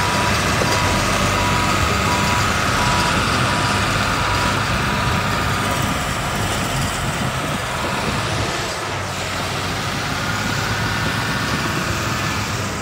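Heavy diesel earthmoving equipment, a Caterpillar crawler dozer and a dump truck, running steadily under load. A backup alarm beeps in even pulses for the first second or so, then stops.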